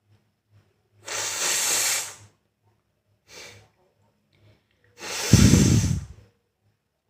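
A person blowing their nose hard twice: a long, hissing blow lasting just over a second, a short sniff, and then a second blow with a low rumble under it.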